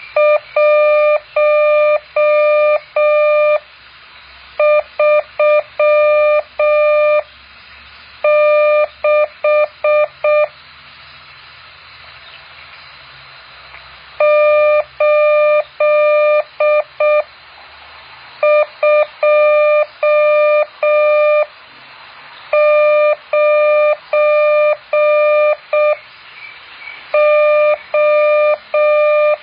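Morse code practice tone: a single steady beep keyed into dots and dashes, sent in groups of characters with about a second's pause between groups and a longer gap of several seconds about a third of the way in.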